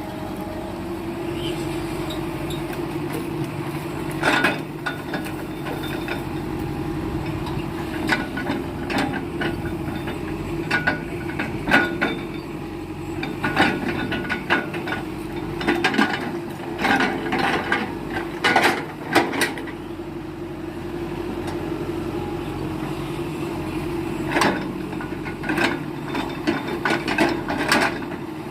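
Excavator diesel engine running steadily while rubberwood logs knock and clunk against each other and the machine, in irregular clusters of wooden impacts.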